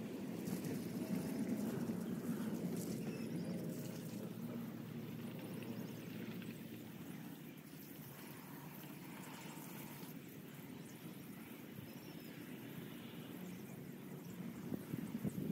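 Outdoor ambience: a steady low rumble, louder over the first few seconds, with a few faint high chirps.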